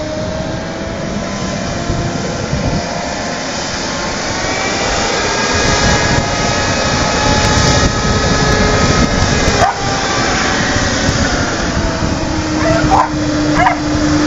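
A small hovercraft's engine and lift fan running steadily, with held tones that drift slightly in pitch. It grows louder as the craft approaches over the shallows.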